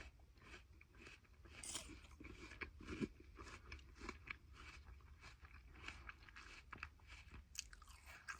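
Faint crunching and chewing of apple slices: a stream of small, irregular crisp bites and chews close to the microphone.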